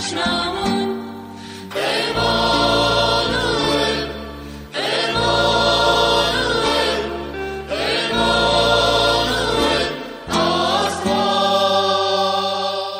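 A choir singing an Armenian Christian hymn in four long held phrases, each about three seconds, with short breaks between them; the last phrase starts to fade near the end.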